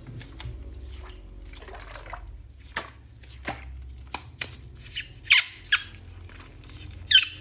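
Plastic toy packaging being handled and opened: scattered sharp clicks and crinkles, with a few short squeaky rasps that fall in pitch about five seconds in and again near the end.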